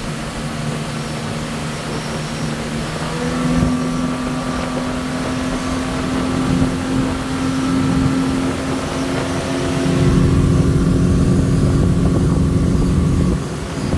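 Yamaha 250 four-stroke outboard running hard, about 5350 rpm with the boat at roughly 44 mph. Its steady drone steps up slightly in pitch about three seconds in. From about ten seconds in, a louder low rushing noise joins it and drops off shortly before the end.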